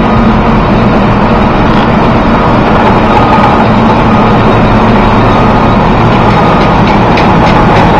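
Coal pouring from a loadout chute into an open-top rail car: a loud, steady rushing noise with a low hum underneath.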